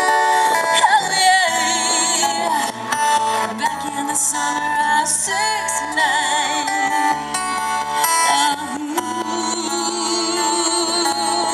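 Live band music: a woman singing held notes with vibrato into a microphone, backed by acoustic guitar and a second guitar.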